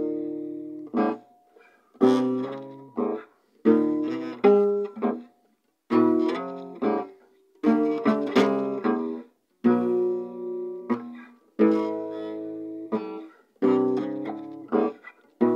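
Acoustic guitar played solo: chords struck in short phrases, each left to ring out and die away, with brief silent gaps between phrases.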